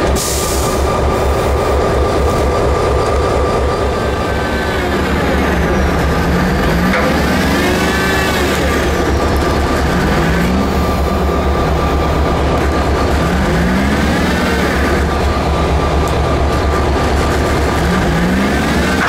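A heavy diesel engine running with a steady low throb, while a squeal rises and falls about every three seconds during the rerailing of a derailed six-axle locomotive.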